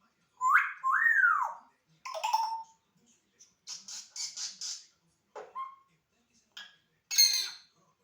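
African grey parrot vocalising in separate short calls: two whistled glides that rise and fall about half a second in, then a mix of short squawks and raspy, clicking noises, with a loud raspy burst about seven seconds in.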